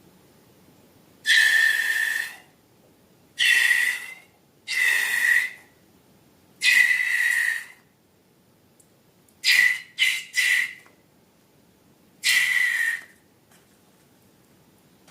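Air squealing out of a stretched balloon neck in eight short whistling spurts: four single ones, then three in quick succession, then one more.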